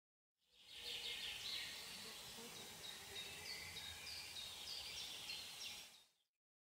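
Forest ambience with a steady hiss and a run of short, high calls repeating about three times a second, which are the strange noise from deep in the forest. The sound fades in and then fades out near the end.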